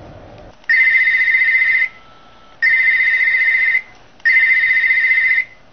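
A phone ringing for an incoming call: three evenly spaced rings of a steady high tone, each a little over a second long.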